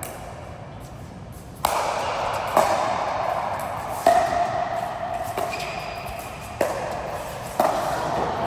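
Six sharp strikes at irregular intervals about a second apart, each followed by a short ringing tone that fades away.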